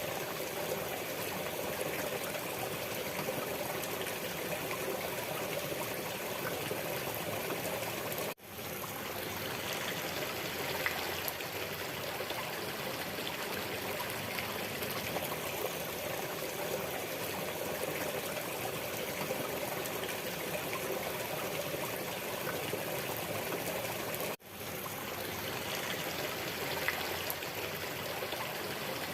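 Waterfall: a steady rush of splashing, falling water. It drops out sharply twice, about 8 seconds in and again about 24 seconds in, and swells back within a second each time, as at the seams of a looped recording.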